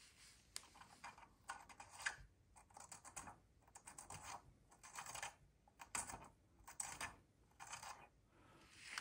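Faint, repeated short scrapes and small clicks of a cleaning brush being pushed and worked into place around the bit of a stained-glass grinder's Mini G accessory, about once a second.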